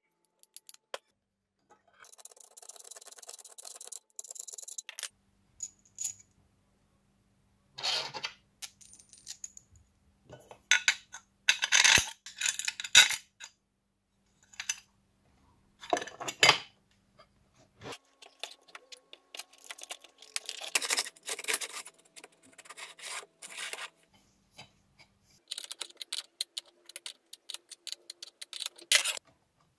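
Small metal parts and hand tools handled on a workbench: short clinks, taps and scrapes of aluminium channel, nuts and bolts, pliers and a spanner. They come in irregular bursts with quiet gaps between, loudest about halfway through.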